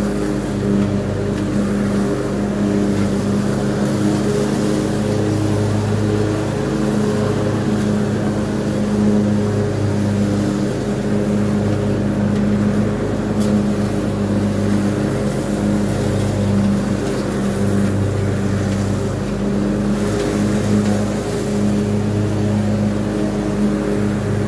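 Craftsman Z6000 zero-turn riding mower's engine running steadily while mowing grass, a constant drone.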